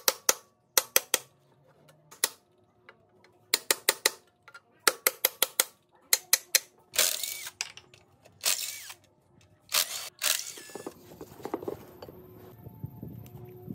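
Ratchet wrench clicking in short rapid runs, about ten clicks a second, as it turns a bolt on a fire-damaged engine block. Then come three longer metallic rasps, and near the end quieter clatter of metal parts being handled.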